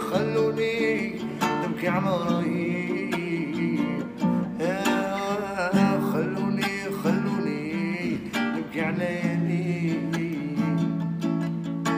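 A man singing in Arabic, accompanying himself on a strummed acoustic guitar.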